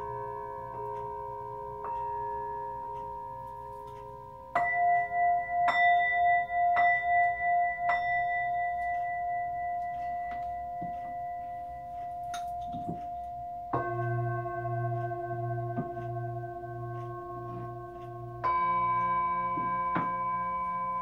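Tibetan and Nepalese singing bowls of different pitches struck one after another with a mallet, each ringing on long and overlapping the others. The loudest strike comes about four and a half seconds in, and its ring pulses as it dies away.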